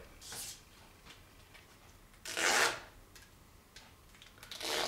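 Rustling and rubbing of a light feather or paper handled between the fingers: three short swishes, the loudest about halfway through.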